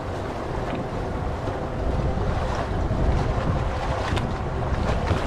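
Steady wind rumbling on the microphone, with the wash of the sea around a small fishing boat.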